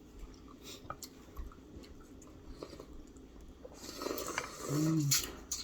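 Close-miked chewing and small wet mouth sounds of someone eating, louder near the end, with a brief hummed "mm" about five seconds in.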